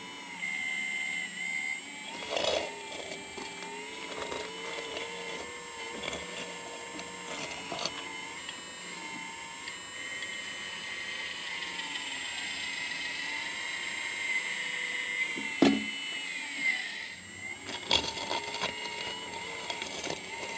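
Kabolite 970 RC hydraulic excavator running, its pump and motor making a steady whine whose pitch dips and rises as the boom and bucket move under load. A few sharp knocks from the bucket working the soil, the loudest about two-thirds of the way in.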